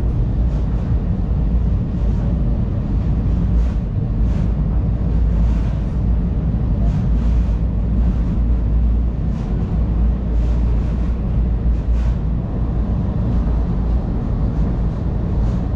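Inside a light rail train car in motion: a steady low rumble from the running train, with faint scattered clicks and rattles.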